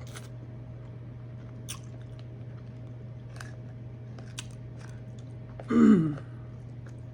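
Close-up eating sounds: quiet chewing with a few wet mouth clicks over a steady low hum, then about six seconds in a short, loud vocal sound from the eater that drops in pitch.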